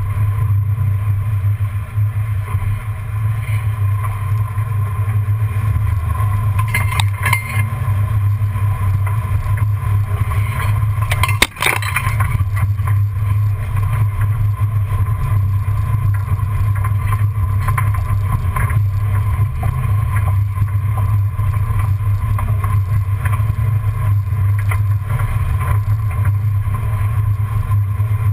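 1994 Ford Bronco driving slowly off-road over dirt, heard from under the chassis beside the front wheel: a steady, loud low rumble of engine, drivetrain and tyres. A few knocks come about seven seconds in, and one sharp knock about halfway through.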